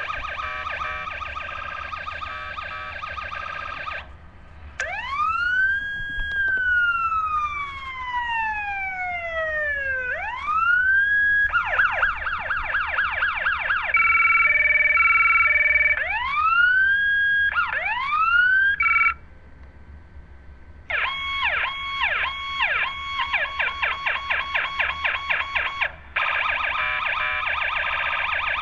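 Police siren ringtone cycling through siren patterns: a fast yelp, long rising-then-falling wails, a steady alternating two-tone stretch and rapid whoops. It switches abruptly between them, with a short drop about two-thirds of the way through.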